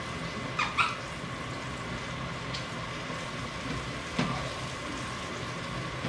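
Steady hiss of a sauce simmering on the stove over a faint steady hum, broken by a few sharp clicks, two close together about a second in and one louder one a little past the four-second mark.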